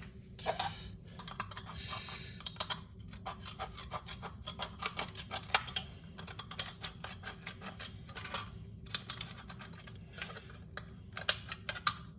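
Small scissors of a Leatherman Wave multitool snipping around the thin aluminium wall of a drink can, a quick irregular run of sharp clicking snips trimming the cut edge.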